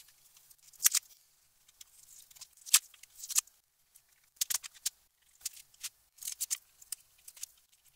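A thin spatula blade scraping under old pastedown paper and prising it dry off a book cover's board: short, irregular scratchy strokes with small rips of paper, the sharpest about a second in and near three seconds in.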